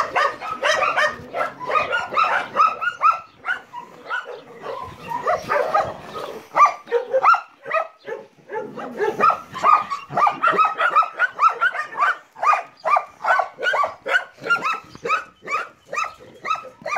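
Many dogs barking at once: a dense, overlapping run of barks at different pitches, several a second, that never lets up.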